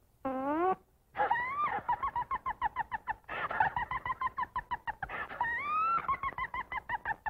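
Cartoon vocal sound effect: a short rising wail, then three runs of a pitched wail that slides upward and breaks into a rapid stuttering warble of about ten pulses a second.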